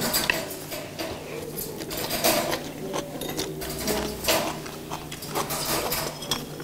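Close-up eating sounds: chewing and mouth noises, with light clicks of metal chopsticks against plates and bowls.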